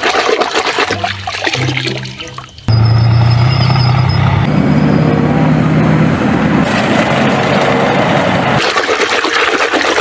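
Running water splashing and pouring as toys are washed, over background music. It gets suddenly louder a little under a third of the way in.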